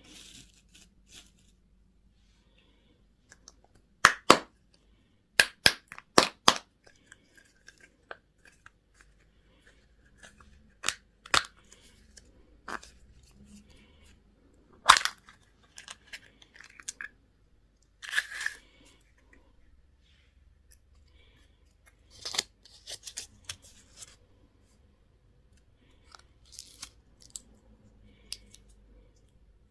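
Candy and toy packaging being handled and opened up close: sharp plastic cracks and clicks at irregular intervals, with short rustles between them.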